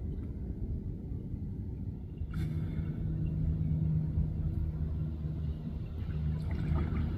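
Low rumble, joined about two and a half seconds in by a steady low engine-like drone that holds to the end.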